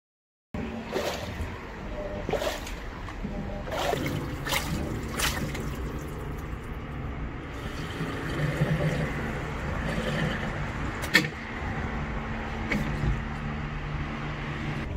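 Water spraying and splashing over a steady motor hum, with several sharp knocks, one louder near the end.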